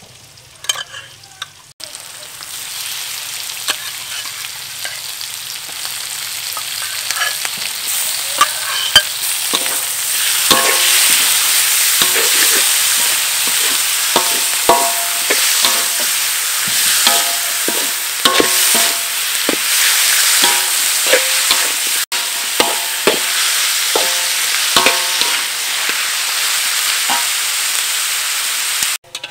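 Sliced chicken breast frying in a hot metal wok with onion, chili and garlic, stirred with a metal spatula. A steady sizzle sets in about two seconds in and grows louder, and from about ten seconds on the spatula scrapes and clinks against the wok again and again.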